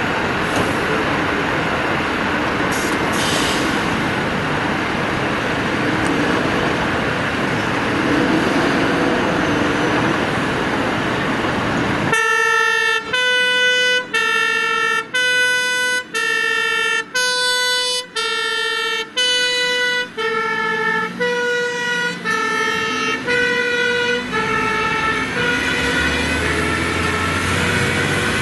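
Mercedes-Benz aerial ladder fire truck's diesel engine running loud as it pulls out. About twelve seconds in, its two-tone siren starts, switching between a higher and a lower tone about once a second with a short break between. The siren fades away as the truck drives off.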